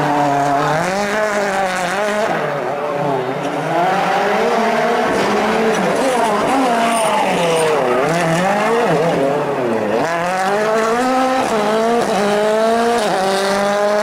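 Ford Fiesta WRC rally car's turbocharged 1.6-litre four-cylinder engine revving up and down as the car slides sideways through a tight hairpin, with tyres squealing. The revs drop low twice in the middle, then climb steadily near the end as it accelerates away.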